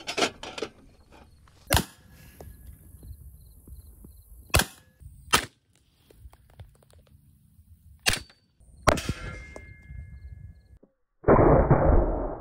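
Shots from an AEA Harpoon .45 PCP air pistol and metallic clangs of the slugs striking stainless steel trays. There is a series of sharp reports and clangs, some small clicks at the start, and a louder, longer burst near the end that rings off.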